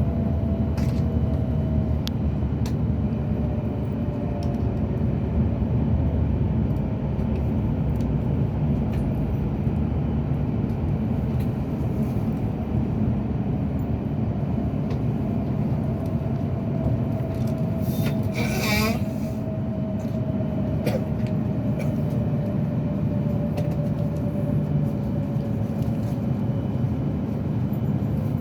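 Cabin noise of a Joetsu Shinkansen train running: a steady low rumble with a faint tone that slowly falls in pitch as the train slows for a station. A brief sound about two-thirds of the way through stands out above the rumble.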